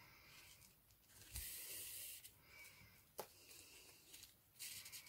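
Near silence with faint handling of sewing thread and grosgrain ribbon: a soft hiss lasting about a second as thread is drawn through the ribbon, a single small click about halfway, and light rustling near the end.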